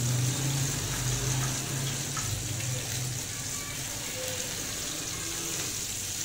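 Cornflour-coated chicken pieces deep-frying in a pan of hot oil, a steady sizzle. A low hum underneath fades out about three seconds in.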